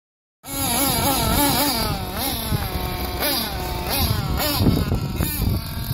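Kyosho Inferno GT radio-controlled car's small engine revving, its pitch swinging up and down over and over as the car is driven. The sound starts suddenly about half a second in.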